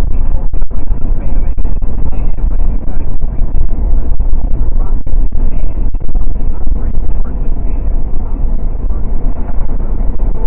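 Steady, loud road and wind noise of a Mercedes-Benz car cruising at highway speed, a heavy rumble heard from inside the cabin.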